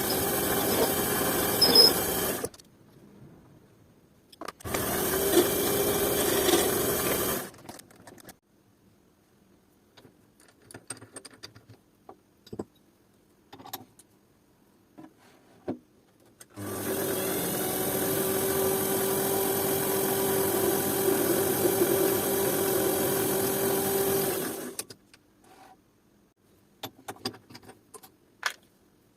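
A small high-speed electric motor running in three spells, two short ones near the start and a longer one of about eight seconds midway, each starting and stopping abruptly with a steady hum. Light clicks and taps come between the spells.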